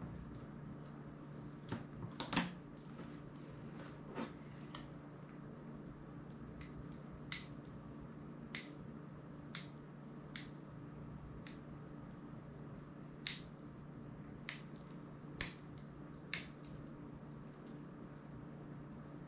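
Small sharp clicks and snaps of hands and a precision tool working the parts of a small MP3 player during disassembly: about a dozen irregular clicks, the loudest a little over two seconds in, over a steady low hum.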